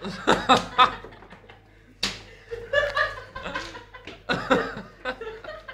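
A group of young men laughing in short bursts: three quick bursts in the first second, then more chuckling and laughter around two seconds and again near the end, mixed with indistinct talk.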